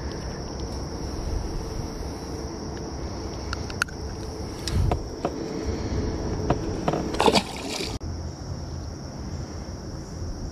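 Steady high insect drone, like crickets, over a low rumble, with a few handling knocks and clicks and a short rustling burst about seven seconds in.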